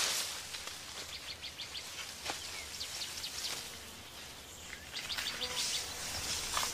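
Birds chirping over a steady background hiss, with two runs of quick, short high chirps: one about a second in and another around five seconds.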